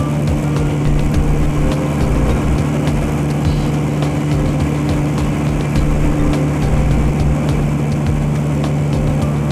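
Piper PA-28 Archer's four-cylinder Lycoming engine and propeller droning steadily in level flight, heard from inside the cabin.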